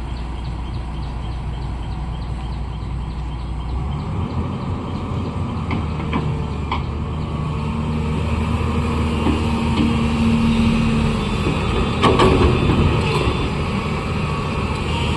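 Diesel engine of a heavy earthmoving machine working, its note shifting about four seconds in and rising in the second half. A few sharp metallic clanks come around six seconds and again near twelve seconds.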